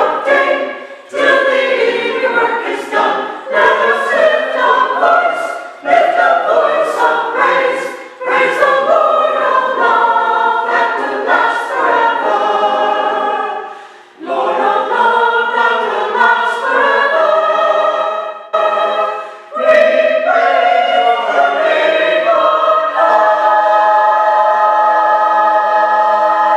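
Community choir singing in several voice parts, phrase after phrase with short breaths between, ending on a long held chord near the end.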